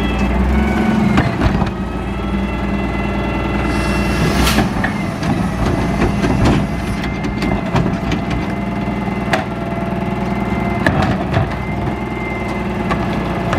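Freightliner M2 Labrie Minimax side-loader garbage truck idling steadily, with scattered metallic clanks and knocks as the cart tipper is worked and carts are handled, one sharp clank about four and a half seconds in.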